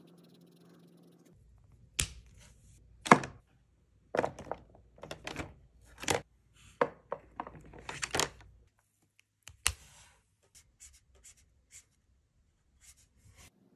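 Hard plastic clicks and clacks of Copic markers being handled at a marker storage rack, a string of sharp separate knocks with the loudest about three seconds in. Lighter, sparser ticks follow near the end.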